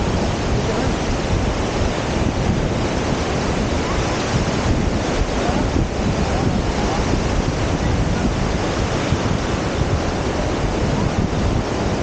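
Small surf waves washing up and draining back at the water's edge, a steady rushing noise, mixed with wind buffeting the camera microphone.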